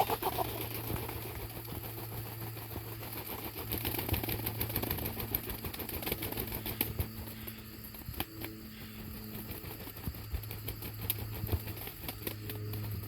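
Freedom Ranger rooster flapping its wings and struggling in rapid rustling, clattering bursts while hung upside down by its feet, over a steady low hum.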